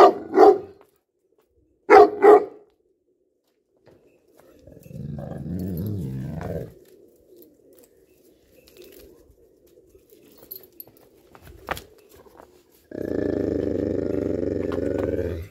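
Pakistani bully dog barking in two quick double barks about two seconds apart, then giving long, low growls, one a few seconds in and a longer one near the end.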